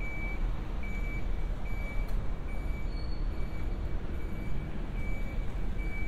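An electronic warning beeper sounding short high beeps at an even pace, a little more than once a second, over a steady low rumble of city traffic.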